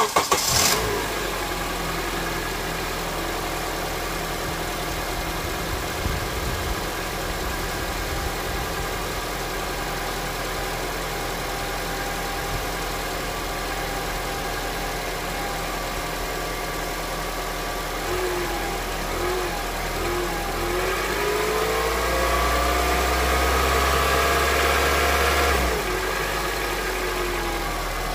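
Honda CR-V petrol engine cranking and catching right at the start, then idling steadily with its engine knock still present. From about 18 seconds in, the engine is revved: the pitch rises and it grows louder, then drops back to idle near the end. The owner finds the knock unchanged on thicker 10W-40 oil.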